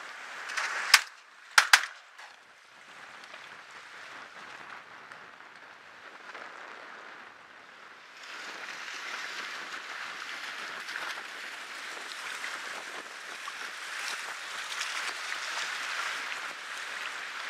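Three shotgun shots about a second in, the last two a fraction of a second apart, fired at geese. Then a steady rush of wind and choppy lake water, a little louder from about eight seconds on.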